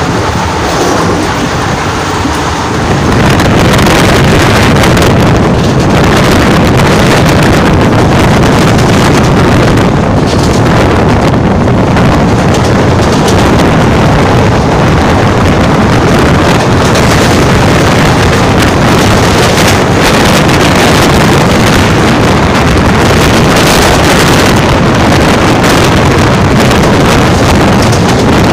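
Loud rumble and wind rush of a moving passenger train, with wind buffeting a microphone held out at the open door. About three seconds in the noise grows louder and stays so, as the train runs close alongside a line of goods wagons.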